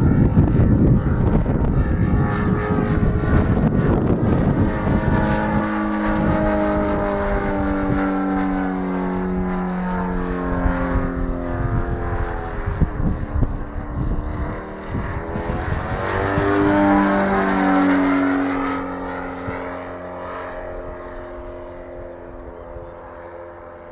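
Engine and propeller of a Marchetti SF260 scale model aircraft flying past twice, its drone dropping in pitch as it goes by each time, then fading away. Wind rumbles on the microphone in the first few seconds.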